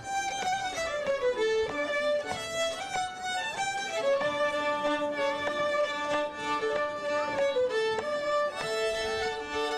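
Fiddle music playing a folk dance tune, a melody of quickly changing notes, with a second, lower part joining about four seconds in.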